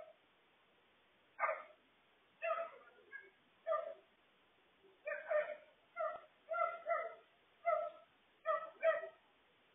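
A dog barking repeatedly: about a dozen short, fairly high barks at uneven intervals.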